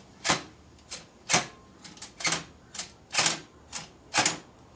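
Welding arc striking in about eight short bursts over four seconds, laying tack welds that join a steel flat bar to a fridge slide's latches.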